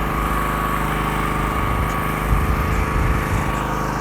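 A small engine or motor running steadily, an even drone with a thin high whine above it.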